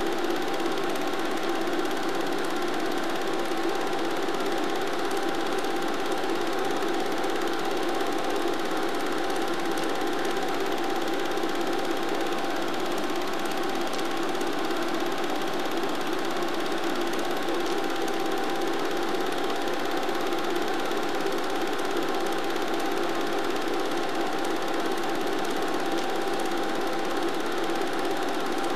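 Steady mechanical whirring with a constant hum, unchanged in pitch and loudness across the picture cuts: the running noise of a film projector, not the motorcycles on screen.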